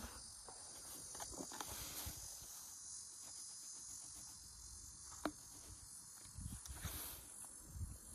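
Faint outdoor ambience: a steady high chirring of insects, with low wind rumble swelling near the end. A few light ticks and scuffs come as granular cleaner is poured from a plastic bottle into plastic buckets.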